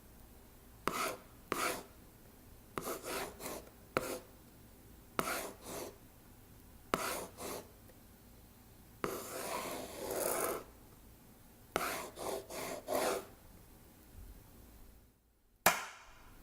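Retracted pen tip scraping over a textured surface while the word "yellow" is handwritten: a series of short rasping strokes with pauses between them, and one longer stroke in the middle. Near the end comes one sharp tap on a table, the signal that stops the recording.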